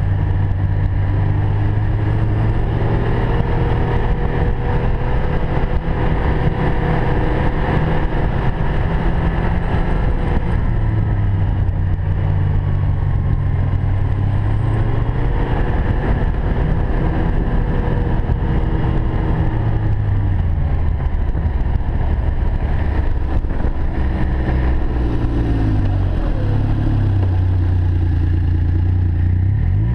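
2013 Ski-Doo Expedition 1200 4-TEC snowmobile's three-cylinder four-stroke engine running under way, its note falling and rising several times as the throttle is eased and opened, over a steady rush of riding noise.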